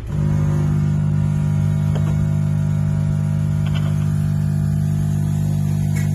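Steady electrical mains hum, one unchanging low buzz with evenly spaced overtones, that starts abruptly and holds level. A couple of faint clicks sit under it.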